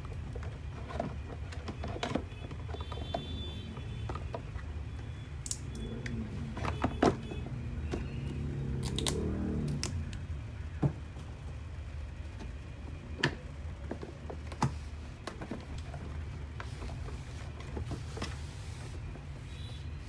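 Hard plastic parts of a toy ride-on car being handled and fitted: scattered clicks and knocks of the plastic dashboard panel against the car body, over a steady low hum.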